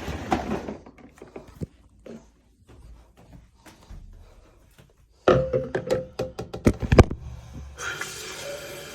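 Knocks and thunks of objects being handled and set down, with a quick clatter of sharp knocks about five seconds in. A steady hiss with a faint ringing follows near the end.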